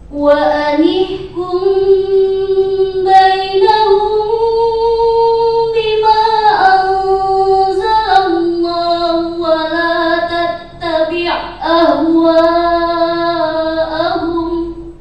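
A teenage girl's solo Qur'an recitation in murattal style: a long chanted passage in a high voice, with sustained notes that slide from one pitch to another and brief dips about a second in and about eleven seconds in.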